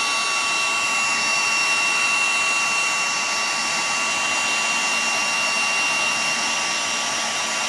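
Electric heat gun running steadily, a rush of blown air with a steady high whine, aimed at a block of cold encaustic wax to melt it.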